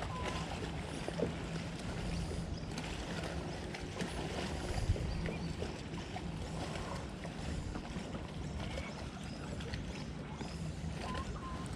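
Steady low outdoor background on the water around a kayak, with scattered small clicks and taps as fishing line is handled while a lure is tied on by hand. A louder single tap comes a little before the middle.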